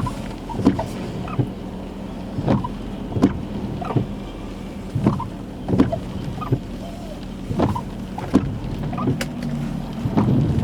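Car windshield wipers sweeping back and forth in the rain, a regular swish-thunk of strokes roughly every second over the steady hum of the car.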